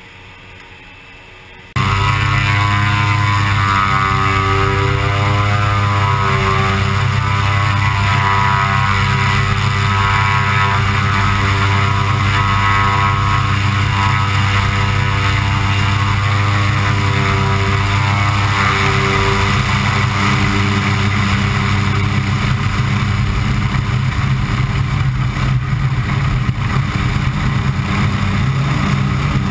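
Pilatus PC-6 Turbo Porter's turboprop engine and propeller running at high power on the takeoff roll: a loud, steady drone with a wavering whine over it, heard close to the propeller. It cuts in suddenly after a quieter first two seconds, and a rushing noise builds in the last third.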